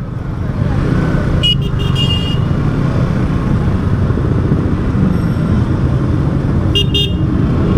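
Yamaha R15 V3's single-cylinder engine running at low speed, a steady low rumble. Short vehicle-horn beeps come twice about a second and a half in and once more near the end.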